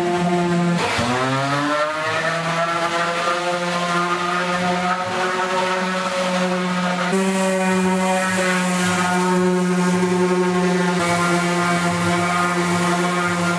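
Corded random orbital sander running at a steady pitch as it sands plywood. About a second in, its motor winds back up to speed from a lower pitch.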